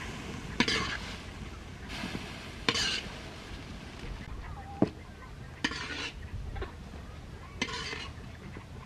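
A utensil scraping and stirring in a cooking pot: about five short scrapes, one every second or two, over a low steady background.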